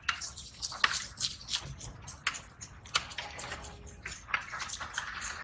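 Irregular sharp clicks and knocks from knife work on a big rohu fish at a wooden chopping block: the blade and the fish's scales tapping and scraping against the block.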